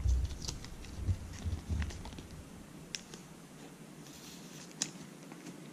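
Trading cards being handled and flipped through by hand, with a few faint, scattered clicks and light taps as the cards are moved.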